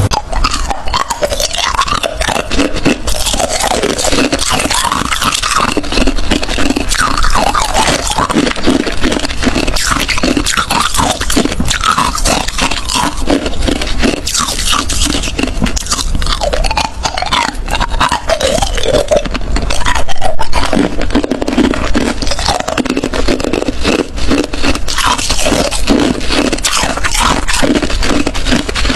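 Close-miked biting and chewing of hard crushed ice: a steady run of crisp cracks and crunches with hardly a pause.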